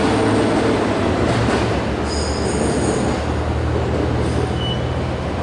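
ET122 diesel railcar's engine running with a steady low hum, growing slightly quieter. A brief faint high-pitched squeal comes about two seconds in.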